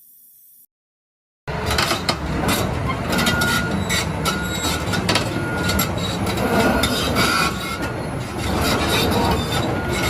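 John Deere 800C large excavator working: a loud, dense mechanical clatter of metal clanks and sharp clicks with short high-pitched squeals, cutting in suddenly about a second and a half in.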